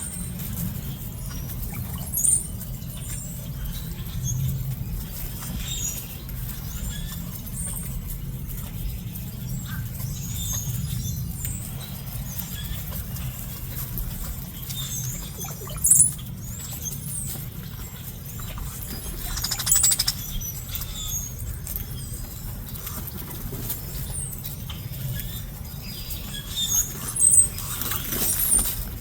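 Small birds chirping, with short high squeaks scattered through and a few louder calls, over a steady low rumble.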